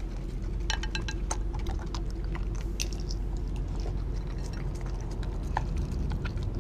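Pitbull–German shepherd mix chewing and gnawing raw turkey close to the microphone, with scattered sharp clicks and clinks of teeth or meat against the glass dish, over a steady low hum.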